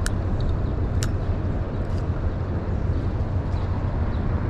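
Steady low rumble of downtown city traffic, with two brief faint clicks about a second apart.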